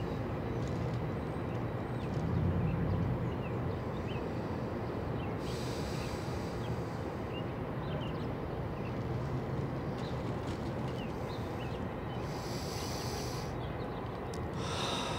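Steady outdoor ambience: a low rumble and rushing hiss, with faint short chirps scattered through it and two brief swells of higher hiss about six and twelve seconds in.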